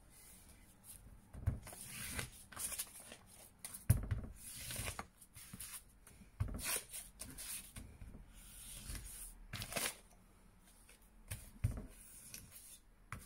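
Steel axe head rubbed back and forth over sandpaper on a bench to take off the file marks: irregular scratchy strokes, with a few knocks.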